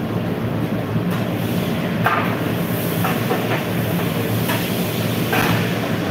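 Steady low rumble and hiss of a commercial kitchen's gas burners and extraction hood, with a few short scraping clatters as a long ladle is worked in a large steel pot.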